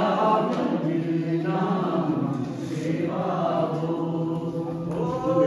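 Men's voices singing a slow chant-like song, drawing out long held notes in phrases of a second or two.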